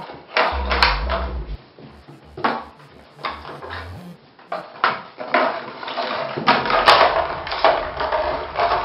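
Dubstep-style electronic background music, with sharp knocking hits at uneven intervals and a deep bass that drops in and out.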